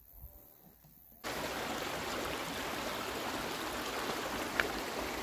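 Water rushing steadily in a mountain stream, cutting in suddenly about a second in after a near-quiet start. One short high chirp near the end.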